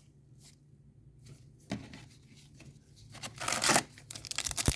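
A trading card pack wrapper torn open about three seconds in, followed by crinkling of the wrapper; a single soft click comes earlier.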